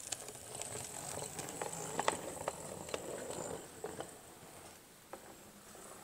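O gauge model Terrier tank locomotive with a Canon EN22 motor and Roxey 38:1 gearbox running over pointwork: a steady mechanical running noise with irregular sharp clicks as the wheels cross the rail gaps. It is loudest in the first three seconds or so and fades as the engine moves away.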